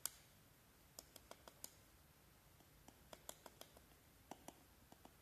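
Light clicks and taps of a metal teaspoon against the rim of a plastic tub as a spoonful of powder is levelled off. The clicks come in loose clusters, the sharpest one right at the start.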